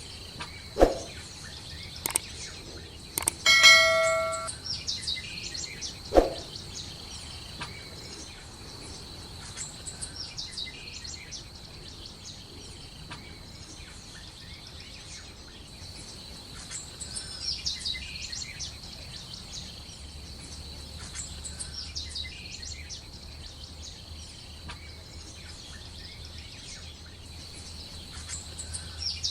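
Birds chirping again and again over a steady high-pitched tone. A single bell-like ring comes about three and a half seconds in, with a few sharp knocks around it.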